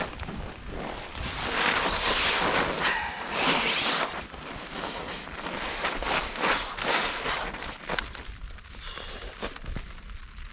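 Rain and wind gusting onto a polyester tarp shelter, an irregular rushing patter with rustling. It grows quieter after about eight seconds.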